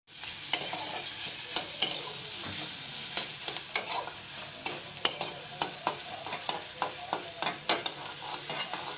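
Hot oil sizzling in a frying pan with spices in it, while a utensil stirs and scrapes against the pan in frequent, irregular sharp clicks.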